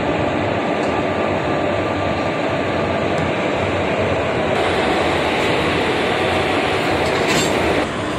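Indian Railways electric locomotive moving slowly alongside the platform, with the steady, loud noise of its machinery and running gear. A brief metallic rattle comes near the end, and the noise then drops a little.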